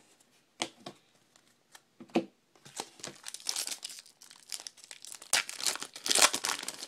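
Foil wrapper of a baseball card pack being torn open and crinkled by hand. A few light ticks come first, and the crinkling builds about two and a half seconds in, loudest near the end.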